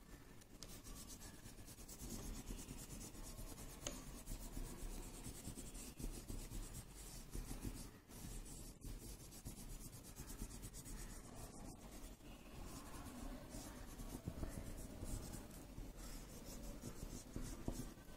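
Wax crayon rubbed on its side back and forth over paper laid on a leaf, a continuous rubbing on paper.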